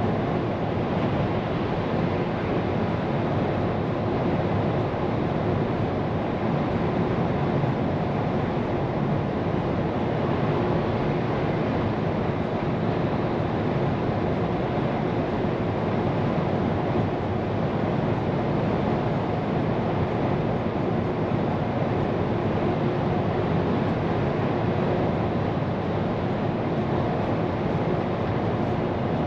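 Scania P410 truck driving at a steady speed, heard from inside the cab: an even rush of road and wind noise with a constant engine and driveline hum, unchanging throughout.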